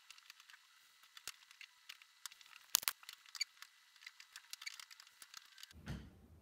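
Faint, irregular clicks and taps of pointe shoes and a wooden chair on a wooden floor as a dancer rises onto pointe, with one sharper click about three seconds in.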